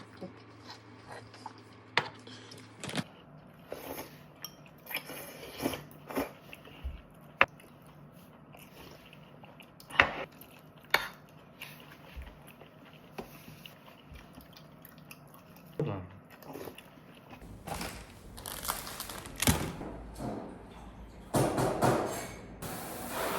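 Eating sounds: chewing and crunching with scattered sharp clinks of cutlery and dishes, in several short cuts, ending in a louder steady noise.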